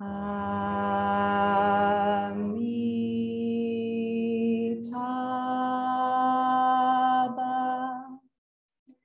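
Men's and women's voices chanting a Buddhist mantra together in long held notes: three drawn-out syllables, each a little higher than the last, stopping about eight seconds in.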